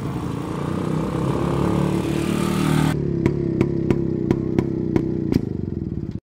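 Quad-bike engine running steadily, then slowing with a slowly falling pitch and a regular knock about three times a second, before cutting off suddenly.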